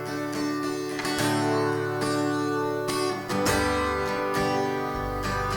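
Worship band's instrumental intro: strummed acoustic guitar over sustained chords, with deep bass notes coming in about halfway through.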